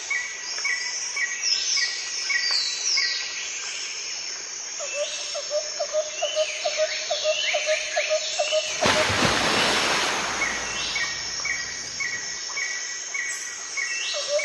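Birds chirping and calling, with rows of short repeated notes and quick falling whistles. About a third of the way in comes a rapid run of lower pulsing chirps, about four a second, followed by a couple of seconds of rushing noise.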